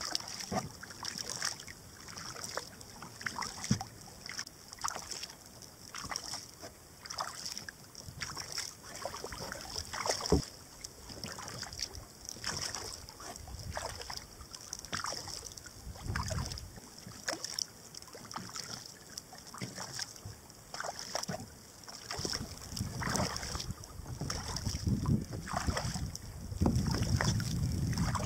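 Double-bladed kayak paddle strokes in calm river water: the blades dip and splash at about one stroke a second, with drips between. Wind buffets the microphone over the last few seconds.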